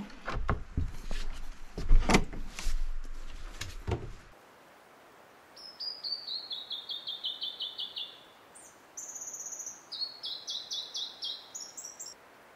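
A hut door's latch and lever handle clunking and the door knocking shut over the first four seconds. Then a songbird sings two phrases of rapid repeated notes: the first falls in pitch, the second ends on higher notes.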